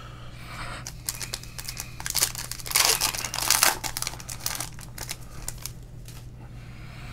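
Crinkling and tearing of a trading-card pack wrapper being opened, loudest in the middle few seconds, over a steady low electrical hum.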